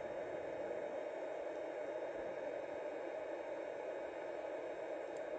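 Steady, even hiss of background room noise.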